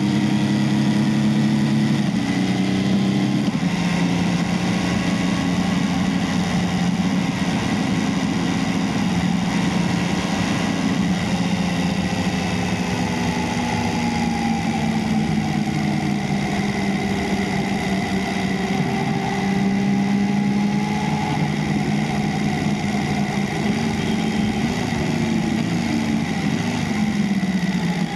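Motorcycle engine running at road speed, with wind rushing over the microphone. The engine note drops about two seconds in, then holds with small rises and falls, and falls away near the end as the bike slows.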